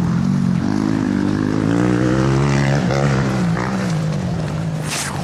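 Motocross bike engine running and revving up and down, rising in pitch a couple of seconds in and then settling. A brief rush of noise comes near the end.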